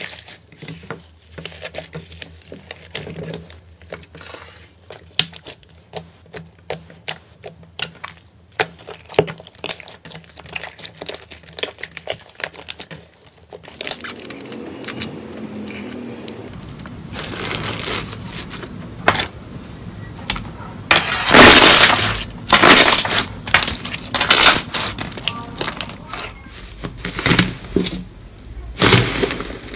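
Slime being handled close to the microphone. For about the first half it gives rapid sharp clicks and pops; after that the sound changes to louder, denser squishing and crunching, the loudest crunches a little past the middle.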